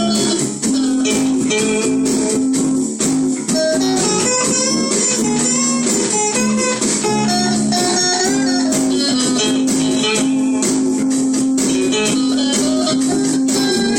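Blues guitar jam: guitars playing quick runs of picked notes over a repeated low note.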